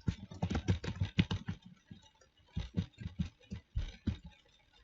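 Typing on a computer keyboard: a quick run of keystrokes, a short pause, then a second run of keystrokes.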